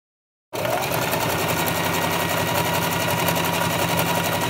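Singer sewing machine running steadily at speed, automatically stitching a one-step buttonhole. It starts abruptly about half a second in.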